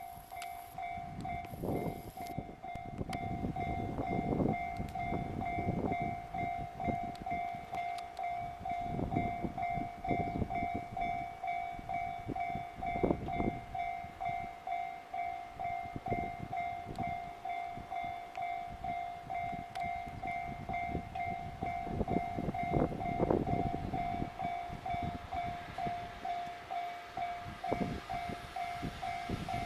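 Japanese level-crossing warning bell ringing in a steady, quick repeating ding while an EF66 electric locomotive's freight train rolls past, its wheels clattering rhythmically over the rail joints.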